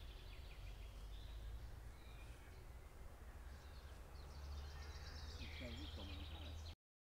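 Small songbirds chirping and trilling in the surrounding trees over a low wind rumble. The sound cuts off suddenly near the end.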